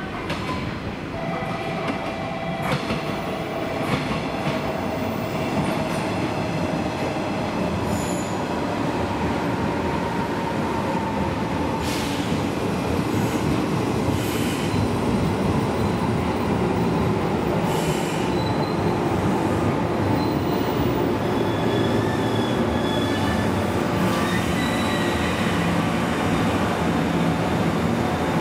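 A JR Kyushu 415 series eight-car electric train pulls in alongside a station platform and slows to arrive. Its running noise grows gradually louder as it comes alongside, with thin high squeals from the wheels and brakes coming and going, a lower steady tone sliding slightly down in pitch, and a few sharp clacks.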